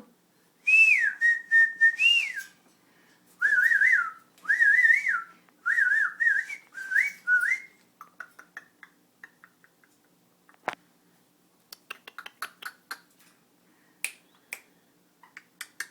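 Pet parrot whistling: a rising-and-falling whistled phrase, then four quick warbling phrases, copying the owner's 'who do you'. These give way to a scatter of short clicks and taps through the second half, with one sharper click near the middle.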